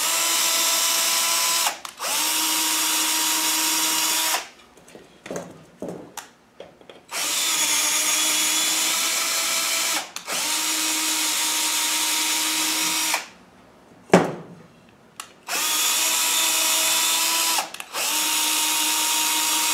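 Cordless drill driving a 5/16 UNF tap into threaded holes in a steel pedal tower, chasing rust and blasting sand out of the threads. The motor runs with a steady whine in six runs of two to three seconds, in three pairs with short stops between. A sharp knock sounds in one of the gaps.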